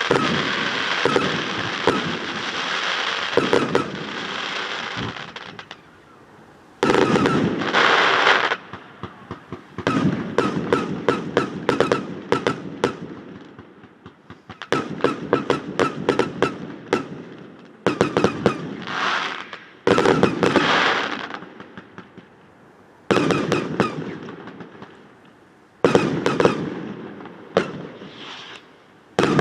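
Fireworks going off in repeated bursts: volleys of sharp crackling and popping and hissing sprays of sparks, with short lulls between them. The bangs echo off a nearby metal hangar, which gives them an odd, ringing sound.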